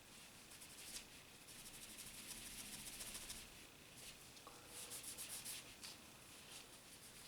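Faint, quick back-and-forth strokes of a cloth rubbing a pocket knife, in two spells.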